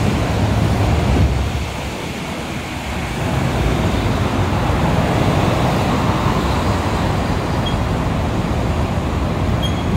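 City road traffic noise: a steady rumble of vehicles going by on a multi-lane street, with a small truck passing near the end.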